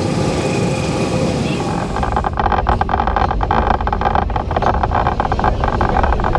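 Vintage open-sided electric tram running on its rails, with a steady whine at first. After about two seconds it turns into a dense, irregular rattling and clattering.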